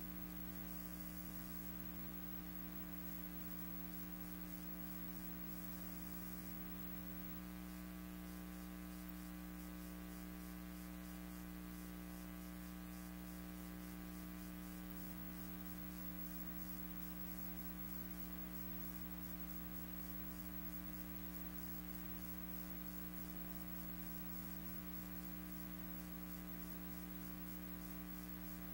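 Steady electrical mains hum with many overtones, over a faint hiss.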